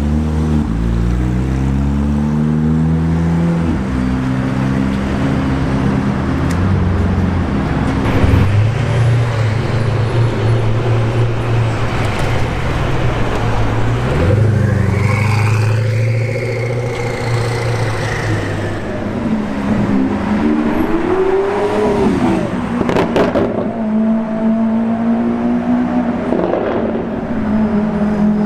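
Sports car engines running loud, climbing in pitch several times as they rev and accelerate, with steadier stretches in between. Near three-quarters of the way through there is a quick rev up and down, followed by a few sharp cracks.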